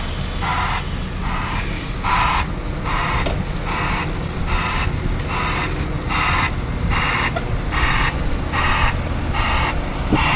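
Vehicle reversing alarm beeping steadily, a little more than one beep a second, over the steady low rumble of a heavy engine running.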